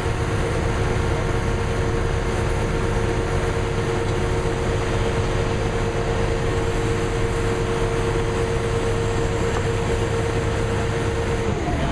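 Crane engine running steadily with a steady whine, which drops in pitch near the end.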